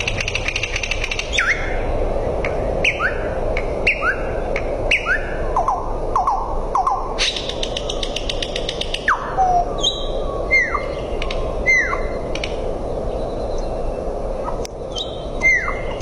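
Nightingale singing a varied song of separate short phrases: fast dry clicking rattles, repeated falling whistled notes and short clear notes, with brief pauses between phrases.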